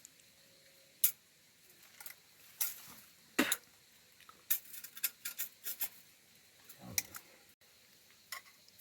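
Scattered light clicks and knocks of cooking utensils being handled, with a quicker run of several clicks about halfway through.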